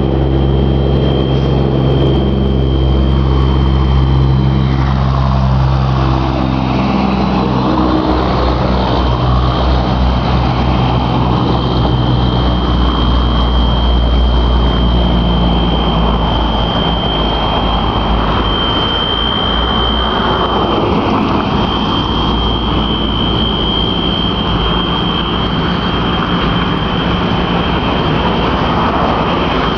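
A continuous alarm holding one steady high-pitched tone without a break, over street traffic. A heavy vehicle's engine runs low and loud through roughly the first half, then fades into the noise of passing cars.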